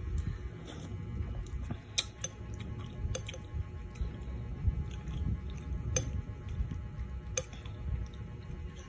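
Close-miked chewing and mouth sounds of someone eating fish soup and rice, with a few sharp clicks scattered through.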